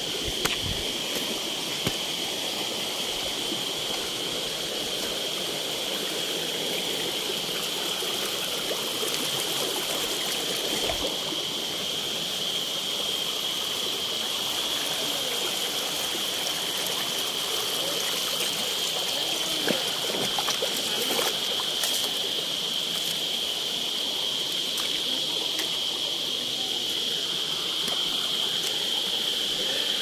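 Shallow stream running and trickling over rocks and boulders, with a steady high-pitched buzz over it.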